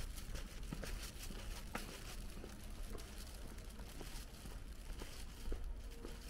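Footsteps on pavement at an even walking pace, about two steps a second, over a steady low rumble.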